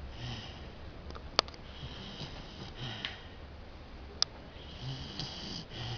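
Sleeping basset hound snoring and sniffing through her nose, with irregular breaths every second or two. Two sharp clicks cut in, about a second and a half in and again past the middle.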